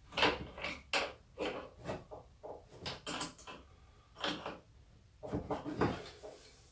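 Irregular small metallic clicks and scrapes of a wrench on the collet nut of an Einhell TC-RO 1155 E plunge router as the bit is changed, with a short pause a little past halfway.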